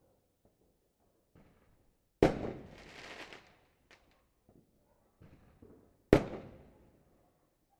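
Fireworks and firecrackers going off: two loud sharp bangs about four seconds apart, each trailing off in a long echo, with a few faint distant pops between them.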